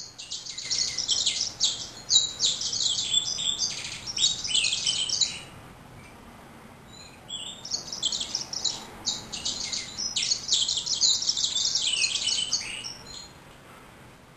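Male yellow-rumped seedeater (Serinus xanthopygius) singing: two song bouts of about five seconds each, rapid runs of high, varied notes, with a pause of about two seconds between them.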